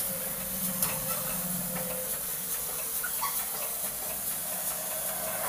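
Steady hiss of grated coconut dry-roasting in a steel kadai on a gas flame, with faint scraping of a steel spatula stirring it.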